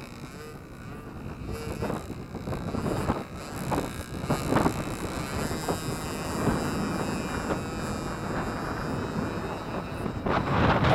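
Wind buffeting the microphone in uneven gusts over the faint, steady drone of a radio-controlled model plane's small 8cc gasoline engine in flight.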